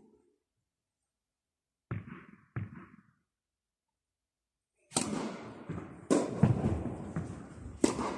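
A tennis ball bounced twice on an indoor court before a serve. About five seconds in, the serve is struck, followed by several sharp racket hits and bounces of the rally, each echoing in the hall.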